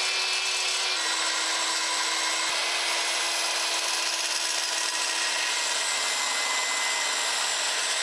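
Milwaukee 10-1/4 inch framing circular saw cutting through a thick wooden timber, running steadily under load. Its motor tone drops a little about a second in as the blade bites deeper.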